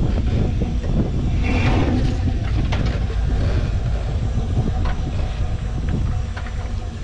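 Jeep Wrangler TJ's engine running low and steady as it crawls over tires and rocks, with scattered knocks from the chassis and tires working over the obstacles.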